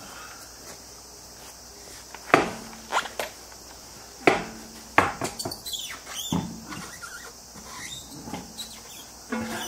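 Scattered metallic clinks and knocks, about a dozen spread over several seconds, some leaving a short ring: a car wheel being fitted onto the hub and its lug nuts handled by hand.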